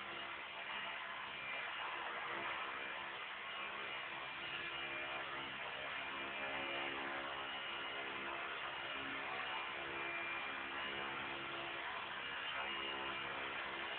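Belt-driven collective-pitch RC helicopter (Honey Bee King 2 with CNC tail and carbon tail blades) hovering: its electric motor and rotors whir steadily, the pitch wavering slightly with throttle and collective corrections.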